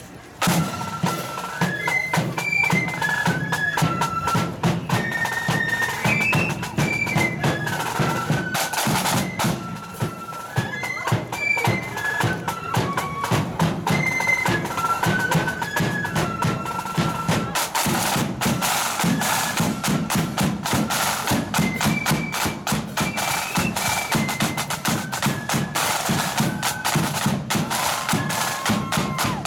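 Marching flute band playing a tune: flutes carry a stepping melody over snare drums beating steadily in march time.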